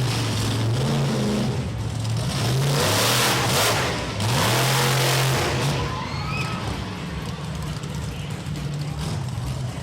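Monster truck engine revving up and down repeatedly, with two louder bursts of throttle around three and five seconds in.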